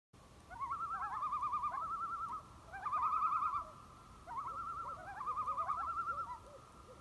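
Several wild animals calling together in long, rapidly warbling cries, some sliding up at the start, in about four overlapping bouts.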